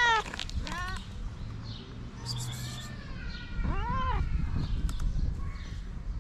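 A calico cat meowing: a long call trails off right at the start, two short meows follow about a second in, and another arching meow comes about four seconds in, over a steady low rumble.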